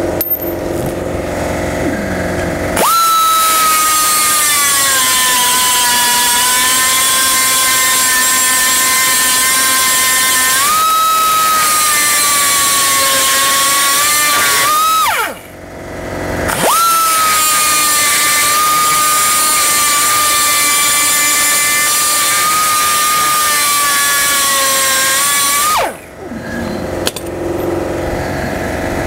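Central Pneumatic air die grinder with a rotary rasp, cutting to enlarge a hole in a steel bracket: a loud, high whine over a rush of air, in two long runs of about twelve and nine seconds. The whine starts about three seconds in, sags in pitch, steps back up partway through the first run, and falls away quickly as each run stops.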